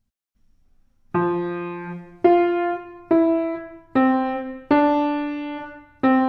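Grand piano played slowly: after about a second of silence, notes are struck roughly once a second, each left to ring and fade before the next.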